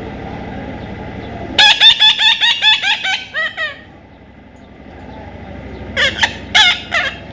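A parrot calling: a fast run of about ten short, shrill squawks with quick swooping pitch, then three more squawks near the end.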